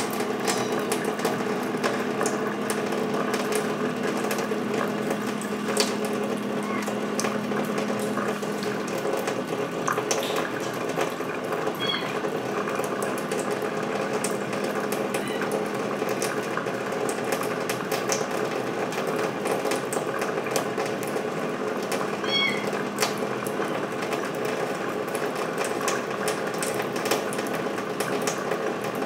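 Tap water running steadily in a thin stream from a kitchen faucet into a stainless steel sink, with scattered soft clicks as a cat laps at the stream. A low hum underneath stops about a third of the way in.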